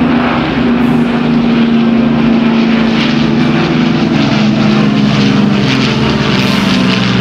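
Avro Lancaster's four Rolls-Royce Merlin V12 engines and a Douglas Dakota's two radial engines flying past together in formation: a loud, steady propeller drone whose pitch falls slowly as they pass.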